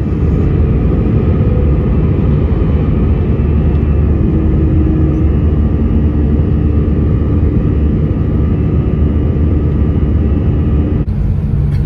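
Jet airliner heard from inside the cabin during climb-out after takeoff: a loud, steady rumble of engines and rushing air. Near the end it switches abruptly to a different, steadier cabin hum.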